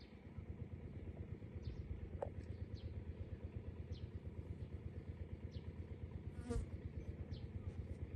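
Outdoor riverside ambience: a steady low rumbling flutter of wind on the microphone, with short high chirps from birds that fall in pitch, one or two a second. One louder, ringing call comes a little after six seconds in.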